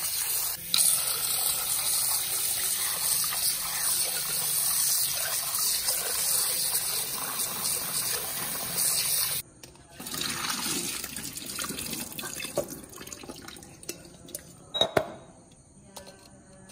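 Kitchen tap running into a glass bowl of raw chicken pieces while they are rubbed and rinsed by hand, with steady rushing and splashing. About nine seconds in the flow sound cuts off suddenly, leaving quieter splashing and dripping with a couple of sharp knocks near the end.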